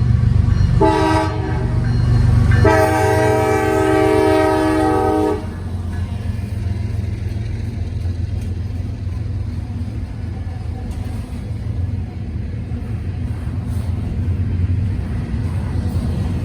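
CSX freight train locomotive horn sounding a short blast about a second in, then a longer blast, over the steady rumble of the passing locomotives and cars. After the horn stops, the train's rumble carries on.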